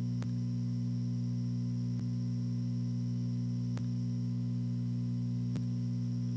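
Steady low electrical mains hum with a faint high whine above it, and a faint tick roughly every two seconds.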